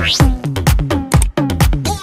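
Electronic dance music with a steady, pounding kick drum about four beats a second, opening with a brief rising whoosh.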